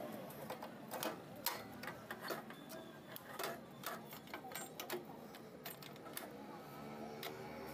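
Irregular sharp metallic clicks and knocks of hand tools working on a motorcycle engine, as a silencer is bolted on and the tappets are adjusted on a Honda CG125.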